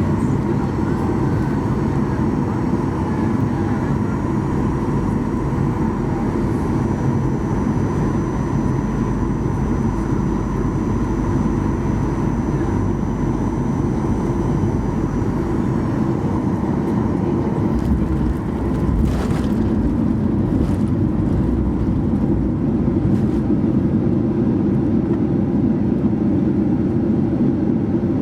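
Steady cabin noise inside a Boeing 737-800 on its way down to landing: the deep, even rush of its CFM56 engines and airflow. About two-thirds of the way in the noise briefly dips, a short knock sounds, and the rush carries on a little louder.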